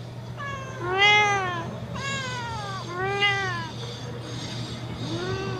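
Cats meowing for food: about five drawn-out meows in a row, each rising and then falling in pitch, while dry food is held out to them. A steady low hum runs underneath.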